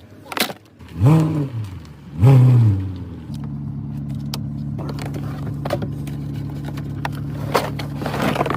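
BMW V12 engine firing briefly twice, each burst rising and falling in pitch, then catching about three seconds in and settling into a steady idle, with a few clicks over it.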